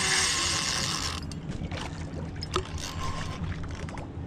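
Penn Battle II spinning reel's drag buzzing steadily as a big redfish pulls line, cutting off sharply about a second in; after that, faint scattered clicks over a low rumble.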